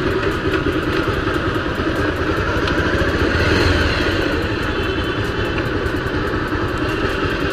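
A motorcycle engine running steadily as the bike rides across a road junction, heard from the bike itself, with a continuous rush of wind and road noise.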